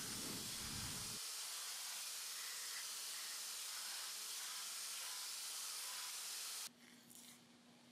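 Belt grinder running, its abrasive belt giving a steady hiss that cuts off abruptly near the end.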